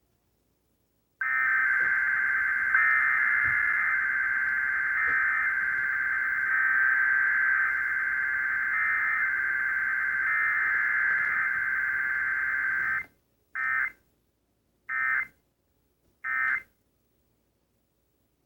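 Emergency Alert System test signal: a continuous electronic data tone for about twelve seconds that cuts off abruptly. Three short data bursts follow, about 1.3 seconds apart, the pattern of the end-of-message code that closes an EAS alert.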